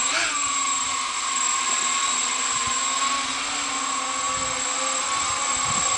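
Homebuilt quadrotor's brushless motors and three-bladed propellers whining steadily as it hovers, the pitch dropping a little just after the start.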